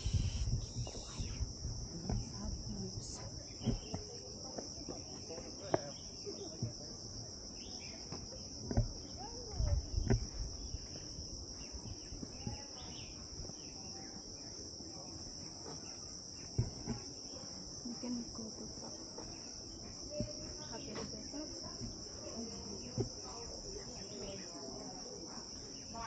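A steady, high-pitched insect chorus, with scattered low thumps.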